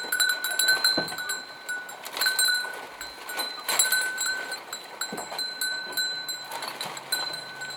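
Goats calling now and then, with scattered clicks and knocks, over a steady high-pitched ringing tone and high chirping.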